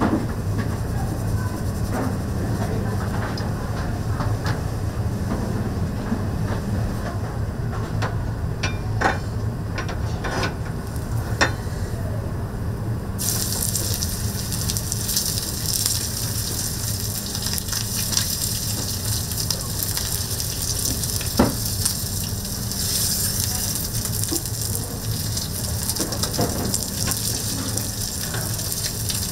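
Beef steak sizzling as it sears on a hot cooking surface, over a steady low hum. A few sharp clicks come in the first half, and a loud, dense sizzle sets in abruptly about halfway through.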